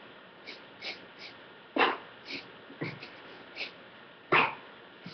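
A person's short, sharp bursts of breath, about eight of them at an uneven pace. The two loudest come about two seconds in and near the end.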